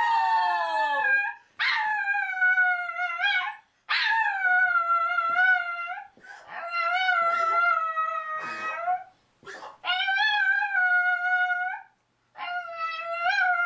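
A dog howling in a run of about six long howls, each around two seconds, with short breaks between them. Each howl starts high, slides down a little, then holds steady.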